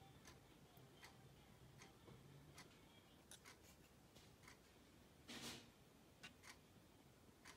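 Near silence with faint, irregularly spaced light clicks and taps of a laser-cut plywood model being handled, and a brief rustle about five and a half seconds in.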